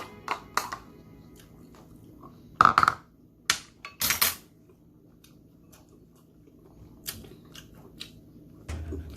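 A person eating close to the microphone: a few sharp bites, crunches and clicks. The loudest cluster comes between about two and a half and four and a half seconds in, with a couple of fainter ones later.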